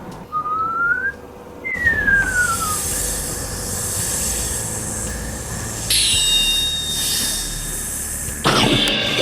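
Edited sound effects: a whistle that glides up and then one that glides down, followed by a long rushing hiss over a low rumble. A bright chime sounds about six seconds in, and a loud pitched cry begins near the end.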